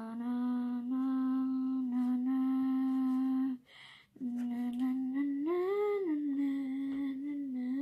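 A person humming long, mostly level notes, with a short break after about three and a half seconds; in the second stretch the pitch rises and falls back about six seconds in.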